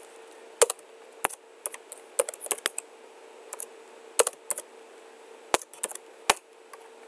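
Typing on a computer keyboard: irregular sharp keystroke clicks, some single and some in quick short runs with pauses between, over a faint steady hum.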